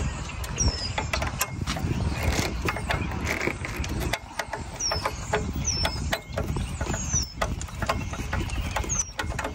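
Hand screwdriver turning out the screw that holds the soft-top tension cable's spring to an NA Miata's top frame, with many scattered sharp metallic clicks and rattles. Short falling bird chirps come through several times.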